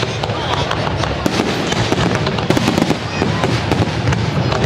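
Fireworks going off: a dense, continuous stream of bangs and crackles in quick succession.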